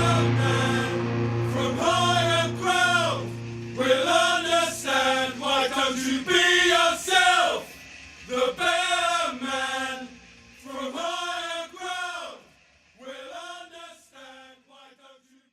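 Background music: a sung vocal line whose low instrumental backing stops about two seconds in, leaving the singing, which fades out toward the end.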